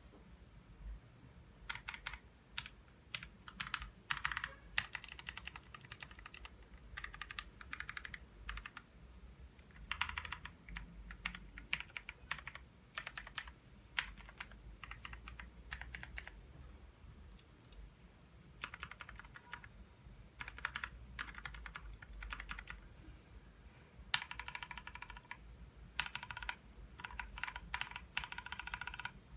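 Typing on a Leaven K550 mechanical keyboard fitted with lubed Outemu Brown tactile switches, lubed, clipped and holee-modded stabilizers, and foam and tempest damping. Quick runs of keystrokes come in bursts of a few seconds, with short pauses between them.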